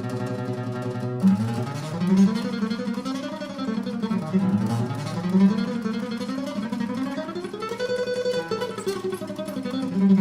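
Background music led by plucked strings, with notes sliding up and down in slow arcs.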